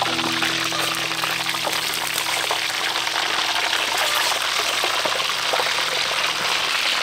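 Whole fish deep-frying in hot oil in a wok: a steady, dense crackling sizzle. Soft background music holds under it and drops out near the end.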